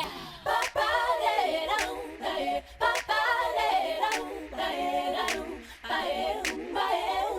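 Unaccompanied singing in a dance performance's music track, several voices in wavering phrases with no beat or bass under them, and a few sharp knocks between the phrases.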